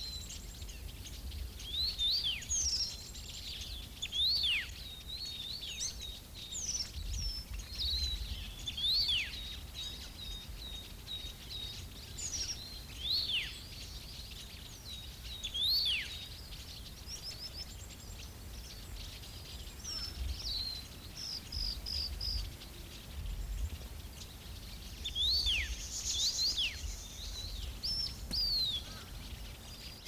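Small songbirds calling: short, sharp high chirps that sweep down in pitch, coming every second or two. Under them runs a thin, steady high tone for several seconds in the first half.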